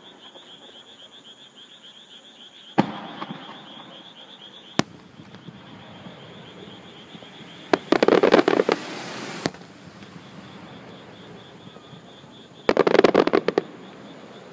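Fireworks going off: a single bang about three seconds in, a sharp crack near five seconds, then two loud bursts of rapid crackling around eight and thirteen seconds. Underneath, a steady high pulsing chorus of insects and frogs.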